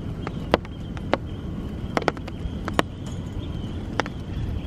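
Scattered sharp ticks and taps over a steady outdoor rush, as tarp poles are handled and fitted into a cotton hexa tarp on a wet wooden deck.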